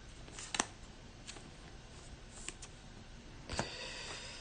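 Trading cards being handled and flipped through: faint rustling with a few soft clicks, the sharpest about half a second in and another about three and a half seconds in.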